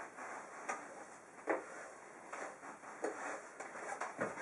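Squeegee scraping across silk wet with water-based polyurethane in short strokes, working the finish into the weave and pushing the excess aside. Each stroke ends in a sharp scrape, at uneven spacing about once a second.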